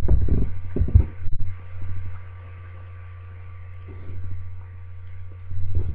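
Steady low hum, with short low pulses of sound in the first second or so and again near the end.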